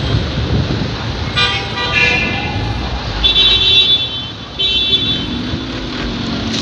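Street traffic running, with vehicle horns honking: one horn about a second and a half in, then two shorter, higher blasts a little later.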